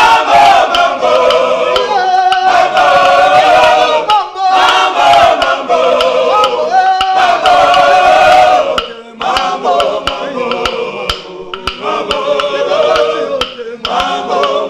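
Male choir singing a praise song in harmony, kept in time by a pair of wooden claves struck in a steady click beat. The singing eases off a little after about nine seconds while the claves carry on.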